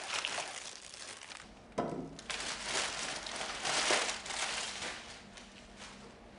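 Brown paper bag crinkling and rustling as it is handled, in a run of crackly bursts that grow loudest partway through and then die away.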